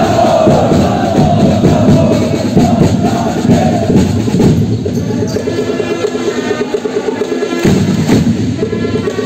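Supporters' drums beating fast with a crowd chanting along; the chant fades about four seconds in while the drumming and steadier sung tones carry on.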